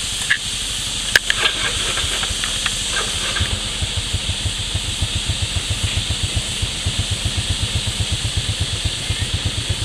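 An engine idling near the microphone: a low, even throb of about six beats a second sets in about three and a half seconds in, over a steady high hiss. There is a single sharp knock about a second in.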